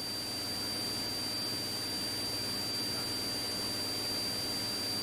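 Quiet open radio channel between transmissions: a steady hiss with a thin, constant high-pitched tone and a faint low hum underneath.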